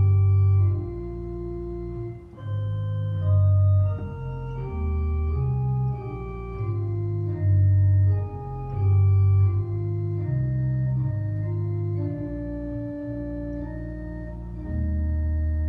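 Neutel church organ playing slow sustained chords over deep bass notes, the harmony changing about every second. About a second before the end it settles on a long held chord.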